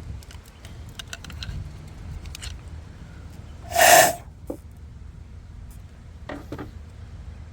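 Light clicks and taps of engine parts being handled, broken about four seconds in by one short, loud burst of noise, the loudest sound, lasting about half a second.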